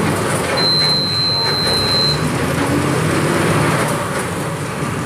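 Volkswagen 17.230 EOD bus engine running steadily. A high, steady beep sounds for about a second and a half, starting about half a second in.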